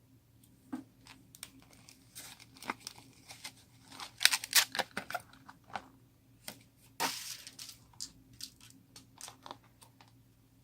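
Slime being squeezed and worked by hand: irregular sticky clicks and pops, a quick cluster of sharp snaps about four to five seconds in and a longer crackle about seven seconds in.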